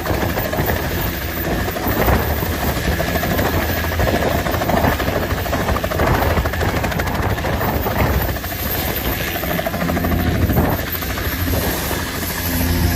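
Helicopter running close by: a steady, loud mix of turbine engine and rotor noise.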